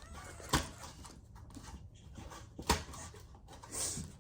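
Cardboard advent-calendar doors being popped open: two sharp clicks about two seconds apart, then a short breathy hiss near the end.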